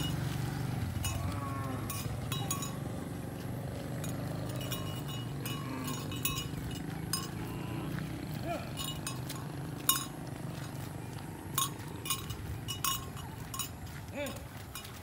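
Bells on grazing cattle clinking and jangling irregularly as the herd moves, in scattered sharp clinks with brief ringing tones. A passing motorcycle's engine fades away over the first few seconds.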